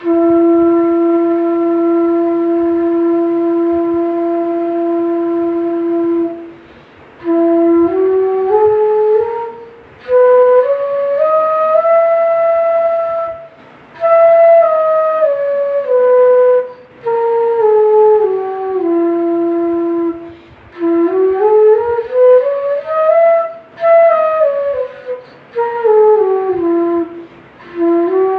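E-base bansuri, a bamboo transverse flute, played solo: one long held low note for about six seconds, then stepwise scale runs climbing and descending, with short breath pauses between phrases.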